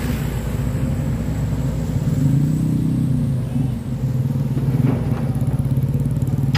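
Komatsu hydraulic excavator's diesel engine running steadily as its grapple swings a bundle of logs onto a truck, rising briefly in pitch and level about two to three seconds in.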